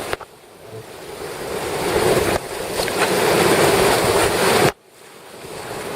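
Rushing river rapids heard from inside a whitewater raft, with wind buffeting the microphone. It comes in three short cuts, each one growing louder and then breaking off abruptly.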